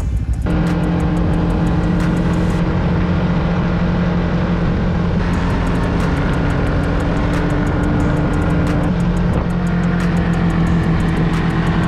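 Ski-Doo snowmobile's 600 ACE three-cylinder four-stroke engine running under way. It comes up about half a second in and then holds a steady note.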